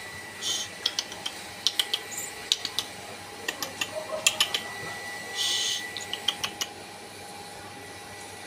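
A kitten's claws ticking and scrabbling on a ceramic tile floor as it pounces on and paws at a cable: quick, irregular clicks in little clusters. Two short hissy bursts come about half a second in and again about five seconds in.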